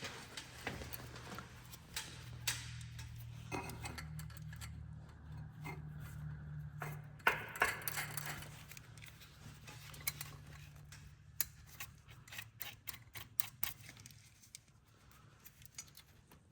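Metal clinks and clicks of manifold bolts and hand tools being handled and fitted on a CAT C-13 diesel engine, with a quick run of clicks past the middle. A steady low hum sits underneath.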